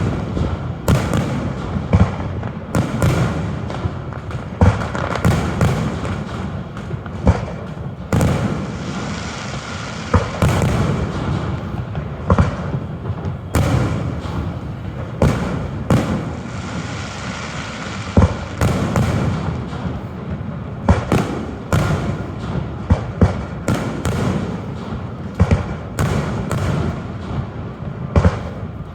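Fireworks finale: aerial shells bursting in rapid, irregular succession, bang after bang over a continuous din of rumbling and crackling.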